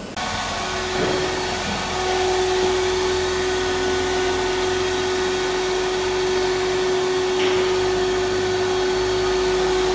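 Steady whir of a motor-driven machine with a constant mid-pitched whine.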